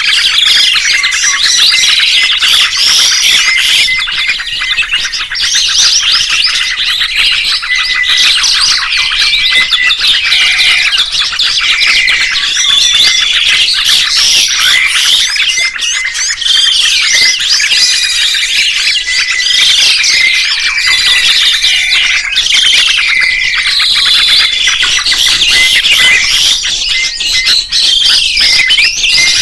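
Dense chorus of songbirds, many overlapping chirps, whistled glides and rapid trills sounding at once without a break.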